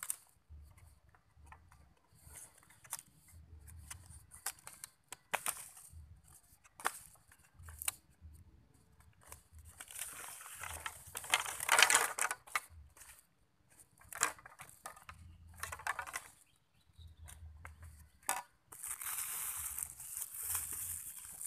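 Bamboo trapping poles being handled: scattered knocks and clicks of the poles against each other, with crackling rustle of dry leaves that is loudest about halfway through. A steady hiss sets in near the end.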